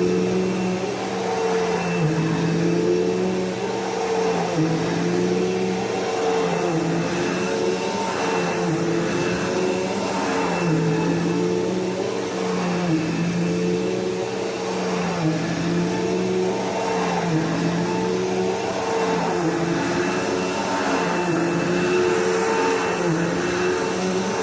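Bissell PowerForce Bagless upright vacuum cleaner running, its motor hum dipping in pitch and recovering again and again, about every two to three seconds.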